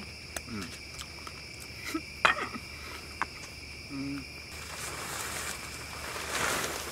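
Crickets chirping in a steady night chorus, with a couple of sharp knocks about two seconds in and rustling in the second half.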